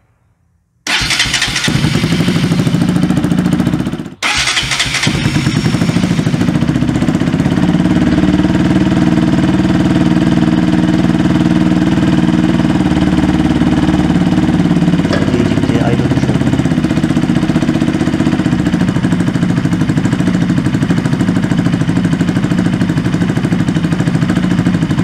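Bajaj Pulsar NS200's single-cylinder engine starts about a second in and then idles steadily, with a short break just after four seconds. Its exhaust is cracked at the joint between the header pipe and the silencer.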